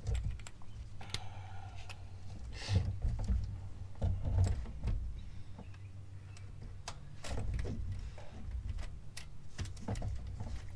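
Scattered clicks, knocks and clinks of a spark plug socket on an extension being worked by hand down in the engine bay as a spark plug is threaded in, over a steady low hum.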